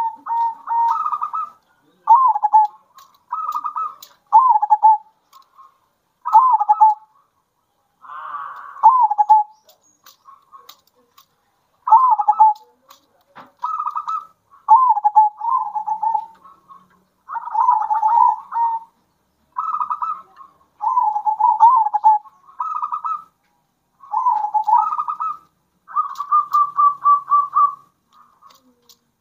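Zebra doves (perkutut) cooing their bekur song in short repeated phrases, one after another with brief pauses. Near the end comes a run of quick, evenly spaced notes.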